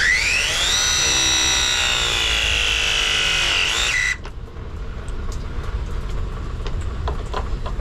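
Powered pipe press tool crimping a copper press fitting. Its motor whine climbs in pitch over the first second, holds steady for about three seconds, then cuts off suddenly about four seconds in as the press cycle completes. A few light handling clicks follow.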